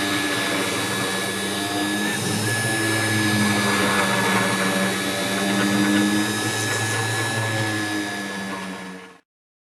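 A 3020T desktop CNC router's spindle running a homemade orbital sanding tool, with a steady high whine over a lower hum that rises and falls. The sound cuts off abruptly near the end.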